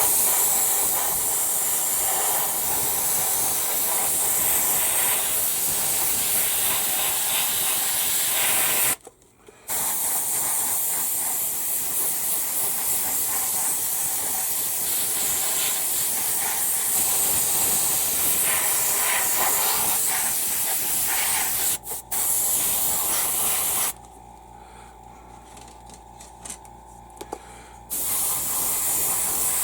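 Iwata HP-C Plus airbrush hissing steadily as it sprays paint. The spray stops for about a second nine seconds in, and again for several seconds near the end, when only a faint low hum remains.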